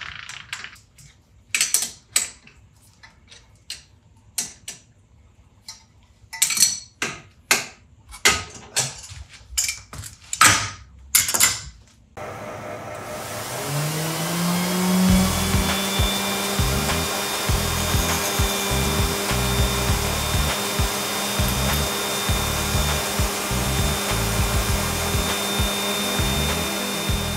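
Sharp metallic knocks and clicks of tools and parts being handled while a tool post grinder is set up on a lathe. About twelve seconds in, the motor starts, rising in pitch for a few seconds, then runs steadily with a hiss, as the grinder resurfaces the lathe's magnetic chuck. Background music plays under the running machine.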